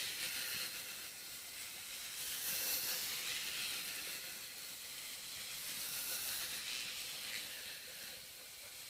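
Steady, even hiss of outdoor background noise, with no distinct event standing out.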